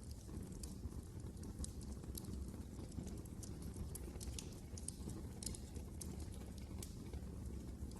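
Wood fire crackling in a fireplace: irregular sharp pops and snaps over a low, steady rumble of the burning fire.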